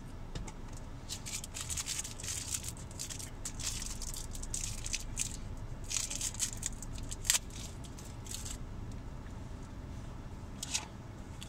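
Close-up chewing and mouth sounds of someone eating, a run of short, crackly, wet bursts through the first eight seconds or so, then quieter with one more burst near the end.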